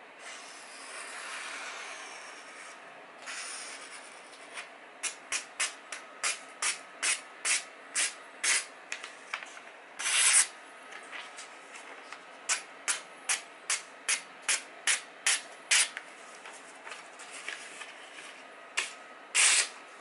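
Sharp kitchen knife slicing through a sheet of glossy magazine paper in runs of short, crisp cuts, about two or three a second, with a longer, louder cut midway and another near the end; paper rustles as it is handled at the start. A paper-cut test of a freshly sharpened edge.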